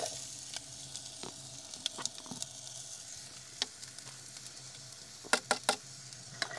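Hot oil sizzling steadily in a pan, with a few light clicks of utensils, most about five seconds in.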